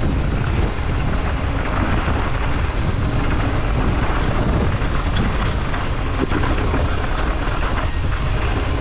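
Mountain bike rolling fast over a loose gravel trail: steady tyre rumble with the constant rattle and clatter of the bike over stones, and heavy wind buffeting on the camera's microphone.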